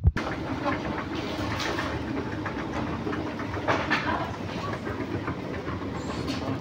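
Escalator running, a steady mechanical rumble with a continuous clatter of small clicks that starts suddenly just after the opening.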